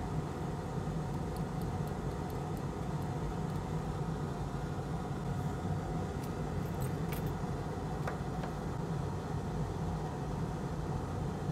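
Steady low hum of a small motor running on the bench, with a few faint light clicks about halfway through.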